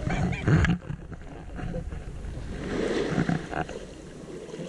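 Muffled sloshing of shallow seawater around a camera held at the waterline, loudest in the first second, with indistinct voices now and then.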